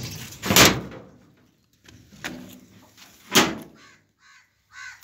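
Rusty sheet-metal gate being worked open: three loud metal bangs and scrapes, the first, about half a second in, the loudest. Short chicken calls follow near the end.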